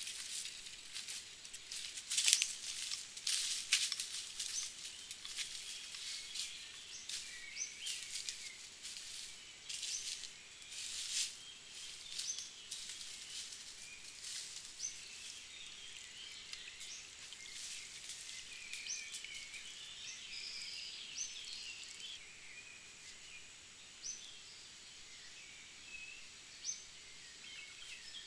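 Footsteps in dry leaf litter and twigs, a dense run of crackles in the first dozen seconds that thins out, with birds chirping short upswept calls throughout; in the second half the bird calls are the main sound.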